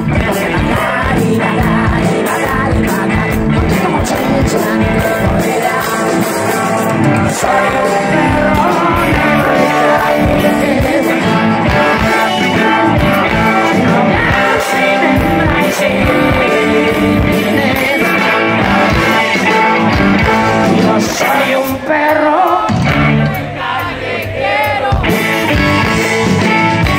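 A rock band playing live and loud through the PA, with electric guitars, bass, drum kit and violin, and singing over it. The music drops back briefly about three-quarters of the way through.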